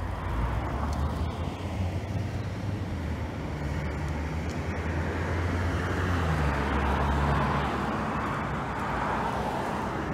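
Road traffic: a motor vehicle's engine running nearby with a steady low hum, and traffic noise that swells about seven seconds in and then eases off.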